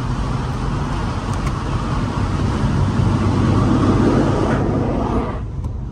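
Inside a 2014 BMW coupe under way: engine and road noise filling the cabin, swelling as the car pulls about three to four seconds in, then dropping off abruptly near the end.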